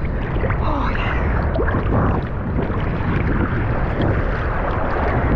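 Wind buffeting the microphone outdoors: a steady, loud low rumble with a hiss of noise above it.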